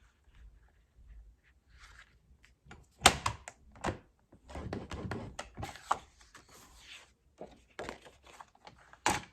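Paper being handled and scored on a scoring board: short rustling scrapes and several sharp knocks, the loudest about three seconds in and another just before the end.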